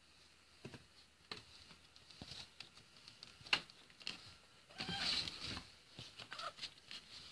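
Close rustling and scattered light clicks of a kitten's fur and a blanket brushing against the phone microphone, with a louder stretch of scuffling about five seconds in.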